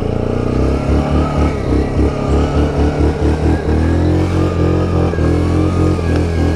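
ATV engine running and revving unevenly under load, the revs pulsing up and down.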